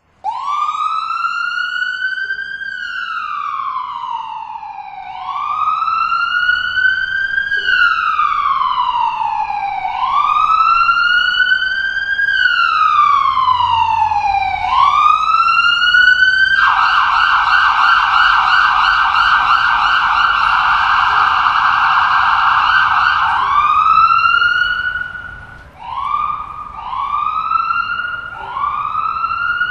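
Emergency-vehicle siren wailing in slow rise-and-fall sweeps, switching to a fast yelp for several seconds about two-thirds through, then a few short rising whoops near the end.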